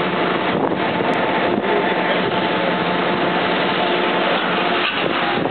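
EMD F7 diesel locomotive's two-stroke V16 engine idling steadily alongside, with a steady drone.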